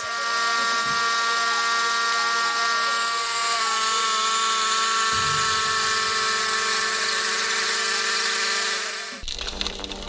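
A machine running at steady speed with a high whine over a hiss, typical of a power saw or similar powered tool; it cuts off abruptly about nine seconds in, leaving a quieter rattling sound.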